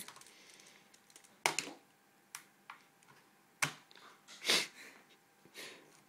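Plastic Rubik's cube clicking and clattering as small hands twist it and knock it about on the table and timer: a few sharp, irregularly spaced clicks and knocks, with a slightly longer rattle about four and a half seconds in.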